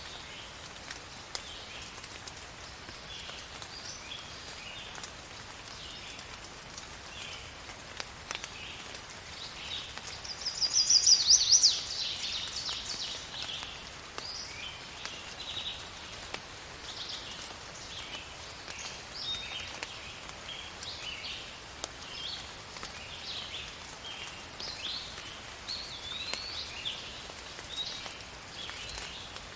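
Steady rain hiss with many birds chirping throughout. About ten seconds in, a loud, rapid bird trill of a couple of seconds stands out above everything else.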